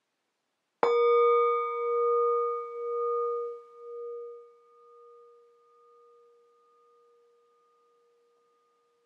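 A meditation bell struck once about a second in, its ringing tone pulsing as it slowly fades away, sounding the end of the meditation practice.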